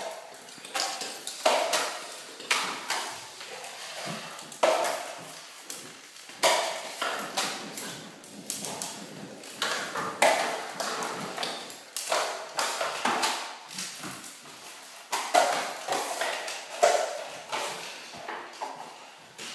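Metal drywall taping knives clinking and scraping against mud pans and the board as joint compound is loaded and spread, in irregular sharp clinks with a short ring.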